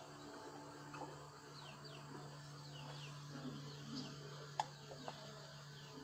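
Quiet jungle ambience of repeated short falling chirps over a low steady hum, with two sharp clicks about four and a half and five seconds in as a metal spoon works honey out of a stingless-bee nest into a cup.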